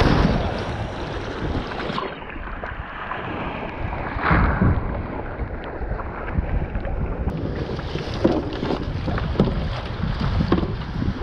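Small waves washing and sloshing against a sit-on-top kayak's hull as it is launched through shallow surf, with wind buffeting the microphone. Water splashes over the bow right at the start and again about four seconds in, and short knocks follow in the later part.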